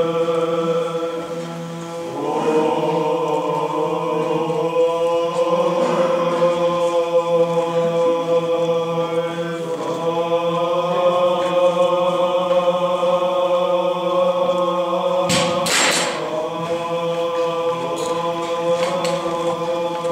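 Byzantine chant sung by voices over a steady low held note, the melody holding long notes that shift every few seconds. Two sharp knocks sound about three-quarters of the way through.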